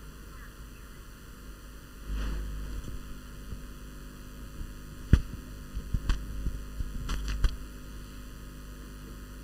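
Steady low electrical hum, with a brief low rumble about two seconds in and several sharp knocks in the second half, the first of them the loudest.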